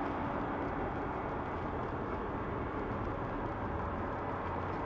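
2001 Yamaha YZF-R6's 600 cc inline-four engine idling steadily.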